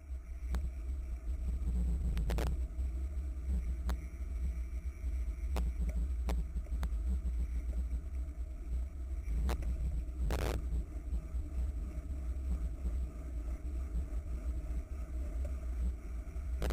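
Wind buffeting the microphone of a camera riding on a racing bicycle at speed, a steady deep rumble with road and tyre noise. Occasional sharp clicks and knocks from the bike or the camera mount jolting over bumps, the loudest about two seconds in and again about ten seconds in.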